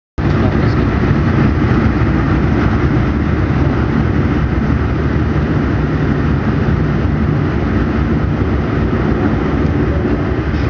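Fokker 50's twin Pratt & Whitney Canada PW125B turboprop engines running loud and steady, heard inside the passenger cabin as the airliner rolls on the runway for takeoff.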